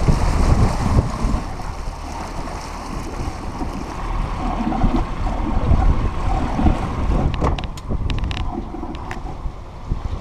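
Small motorboat under way: wind rumbling and buffeting on the microphone over the rush of sea water along the hull. A cluster of sharp clicks or splashes comes near the end, as the boat enters a sea cave.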